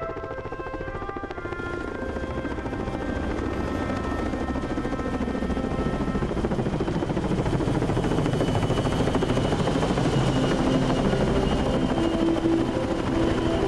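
Helicopter rotors beating in rapid chop, growing louder over the first several seconds and then holding steady. Music fades out under it at the start, and faint musical tones return near the end.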